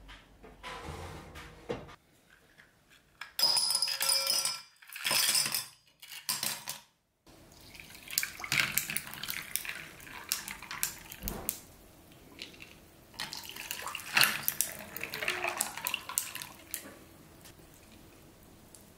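Glass tumblers clinking with ice, then a drink poured over ice cubes in a glass: liquid splashing, with the ice cracking and clinking against the glass.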